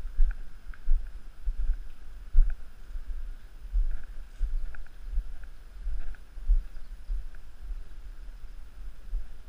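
Uneven low rumble and thumps from a camera carried at a walk, with faint crunching steps on a gravel campsite pad.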